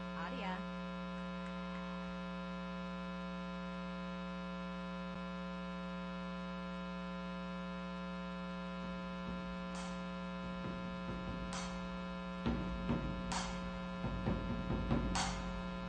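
Steady electrical mains hum, a buzz with a stack of steady overtones. From about ten seconds in, music starts faintly under it: sharp struck hits roughly every two seconds, with a low drum rumble building near the end.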